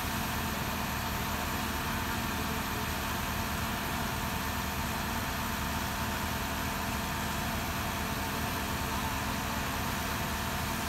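A heavy vehicle engine idling steadily under an even hiss, with no change in pitch or level.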